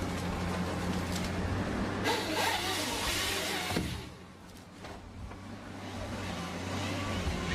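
A machine's engine running steadily. Midway there is a louder stretch of noise that ends in a sharp crack, then the sound briefly drops before the engine hum returns.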